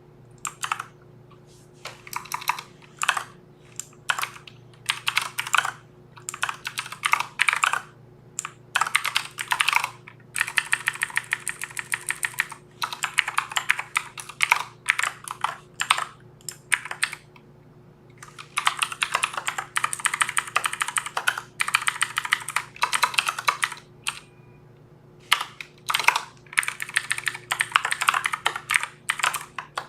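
Typing on a Filco Majestouch mechanical keyboard: bursts of quick clacking keystrokes with brief pauses between them.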